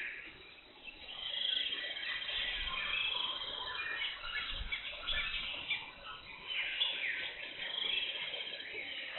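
Several birds chirping, trilling and calling together in a busy tropical forest chorus, with calls overlapping throughout.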